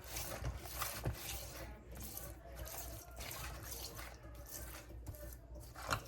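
Hands massaging mustard and dried herbs into raw catfish: faint, irregular wet rubbing and squishing.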